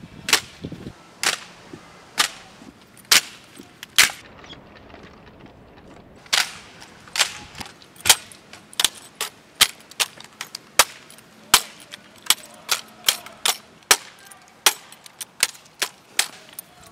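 Sharp slaps and clacks of hands striking wooden-stocked drill rifles during precision rifle drill. About one a second at first, then after a short pause coming faster, up to about two a second near the end.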